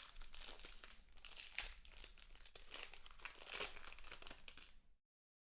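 Plastic wrapping on a sealed box of trading cards being torn open and crinkled by hand, a dense run of crackles that stops abruptly near the end.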